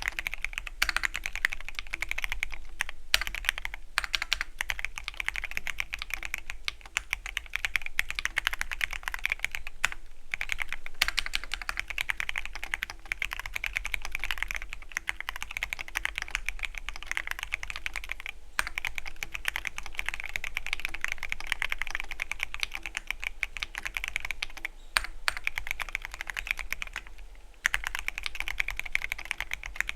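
Fast, continuous typing on a Keychron Q13 Pro Max mechanical keyboard with red linear switches: a dense run of key clicks, broken by a few brief pauses.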